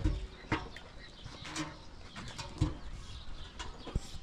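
A few scattered knocks and thumps, with birds chirping and calling in the background.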